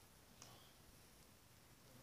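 Near silence: faint background hiss with one faint click about half a second in.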